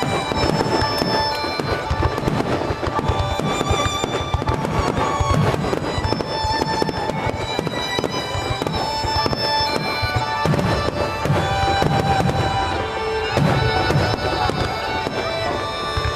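Fireworks finale: a dense, continuous barrage of shells bursting, many bangs and crackles in quick succession, over music with long held notes.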